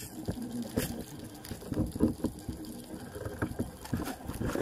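Water gushing and bubbling around the microphone, with scattered irregular clicks and knocks.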